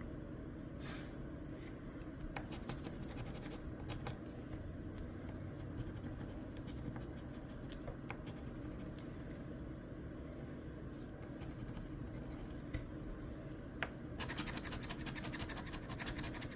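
Faint scratching of a crossword scratch-off lottery ticket, the coating being rubbed off in short strokes; the scratching gets busier and louder near the end.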